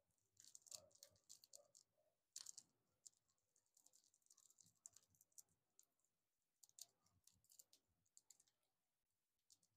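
Near silence: room tone with a few faint, scattered clicks.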